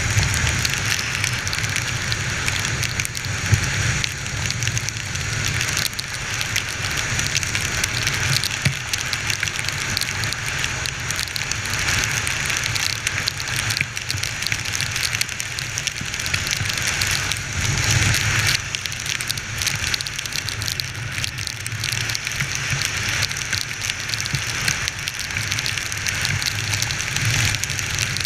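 Heavy rain spattering and crackling on the camera as it rides on a Honda XR 250 Tornado motorcycle, with the bike's engine and road noise rumbling low underneath.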